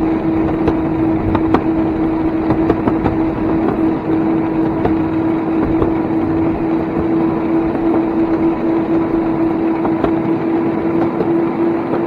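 DIY electric railcart rolling along the track: a steady whine holding one pitch over the rumble of its wheels on the rails, with a few faint clicks.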